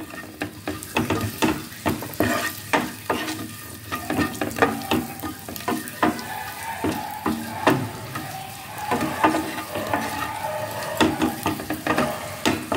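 Spice-coated boiled eggs frying in hot oil in a pan, with a steady sizzle, while a wooden spatula turns and rolls them, giving frequent irregular clicks, knocks and scrapes against the pan.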